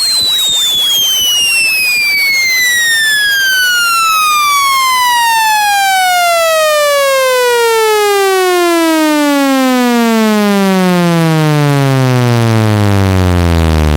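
Speaker-cleaning test tone: a loud electronic tone gliding steadily down in pitch from high to deep bass, growing buzzier as it falls.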